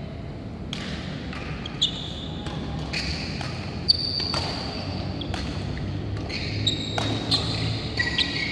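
Badminton rally: sharp racket hits on the shuttlecock and short, high shoe squeaks on the court mat, in a string of separate strikes with the loudest hit about four seconds in.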